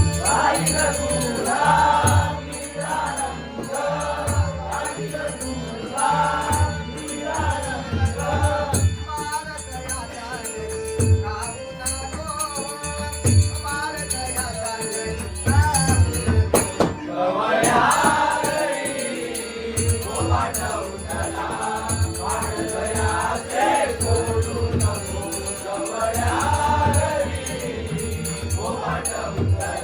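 Traditional Konkan bhajan: devotional singing by a lead voice and group, with regular low drum beats keeping the rhythm and a held tone underneath.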